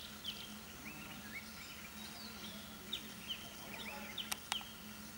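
Outdoor ambience of small birds chirping in many short, quick calls, over a steady low hum, with two sharp clicks close together near the end.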